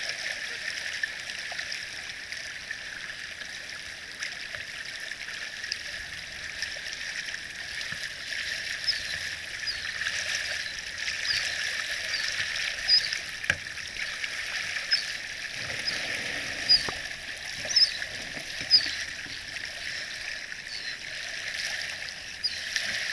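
Small waves lapping and washing over a pebble beach, a steady wash of water. Through the middle stretch there is a run of short, high chirps, about one a second, and a few sharper splashes.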